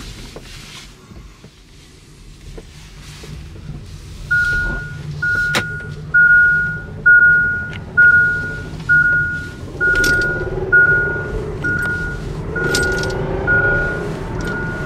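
Inside a moving Kia e-Niro: steady road and drivetrain noise. From about four seconds in, a single-tone warning chime beeps about once a second, a dozen times, each beep fading fast. Later a faint whine rises and falls underneath, from the car's defective electric drive unit.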